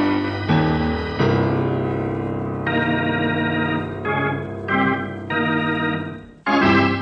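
Organ music: a run of held chords that change every second or so, fading away briefly near the end before a loud chord comes in.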